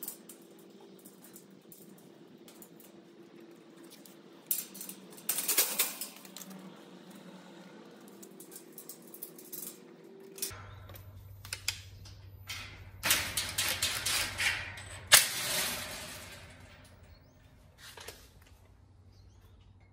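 Small screws and nuts clicking and rattling against galvanized steel greenhouse frame pieces as they are fitted by hand, in scattered clusters, the sharpest click about fifteen seconds in.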